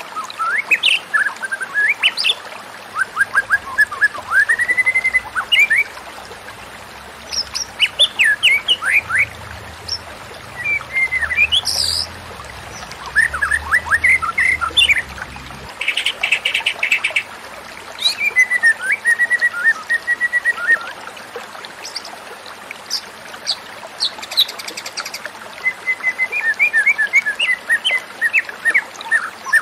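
White-rumped shama singing: a long run of varied whistled phrases that slide up and down, broken by short pauses, with a few harsher buzzy notes mixed in.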